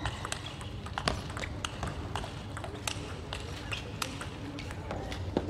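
Table tennis rally: the ball clicking sharply off rubber-faced rackets and the table top in quick alternation, several hits a second, the loudest about a second in.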